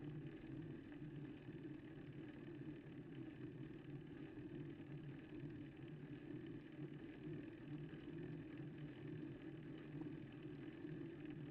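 Faint, steady low rumble of a road bike climbing slowly on tarmac, as picked up by the bike-mounted camera's microphone, with a slight pulsing.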